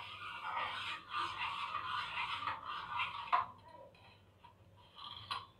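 Steel ladle stirring milk in a stainless steel pan while almond paste is poured in. The steady stirring noise ends with a single knock a little over three seconds in, and only faint stirring follows.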